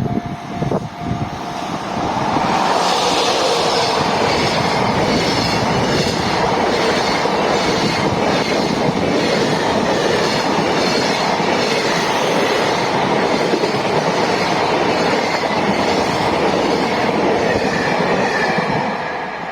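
Freight train passing, its wagon wheels running on the rails with a clickety-clack. The sound builds about two seconds in and stays loud and steady until it eases near the end.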